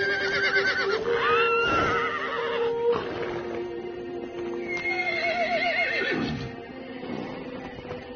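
Horses whinnying, a few quavering calls that fall in pitch, over music holding long sustained notes.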